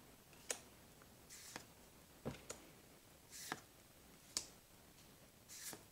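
Magic: The Gathering cards being flipped one at a time in the hand: a series of faint, short card flicks and slides, roughly one a second.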